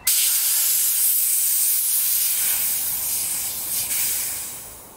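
High-pressure air hissing through the fill hose from a diving cylinder into a PCP air rifle's fill probe. The hiss starts suddenly at full strength, holds steady, and dies away over the last second.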